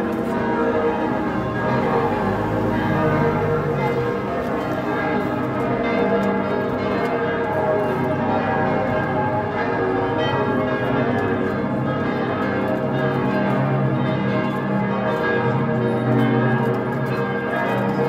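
Several church bells ringing together in one continuous peal, many tones overlapping and sounding at once.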